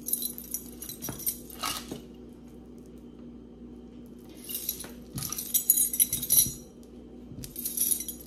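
Costume jewelry jingling and clinking as pieces are handled, in three spells: one at the start, a louder one around the middle, and a short one near the end, over a steady low hum.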